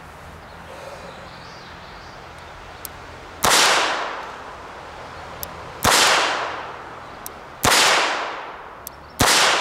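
Smith & Wesson 617 .22 LR revolver fired four times in double action, the shots about two seconds apart. Each shot is a sharp crack with a ringing tail that dies away over about a second, and a faint click comes just before each one.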